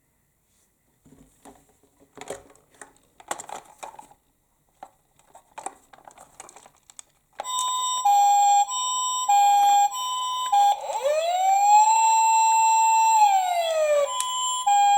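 Toy emergency vehicle's electronic siren: a few seconds of light plastic clicks and rattles, then a loud electronic two-tone siren switching between two pitches. About halfway through it changes to a wail that rises, holds and falls, then goes back to the two-tone pattern.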